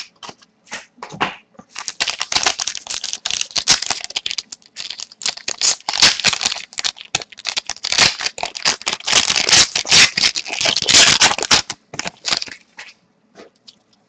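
A foil-wrapped hockey trading card pack being torn open and its wrapper crinkled by hand. The dense crackling begins a second or two in and stops about two seconds before the end, leaving a few light clicks of cards being handled.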